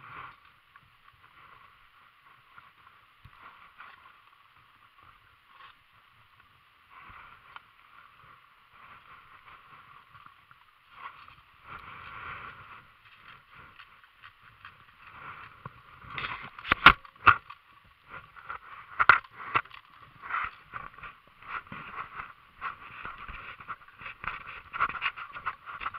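Rustling and knocks of a person moving on foot with gear. It is faint at first, then louder, with irregular sharp knocks from about two-thirds of the way in.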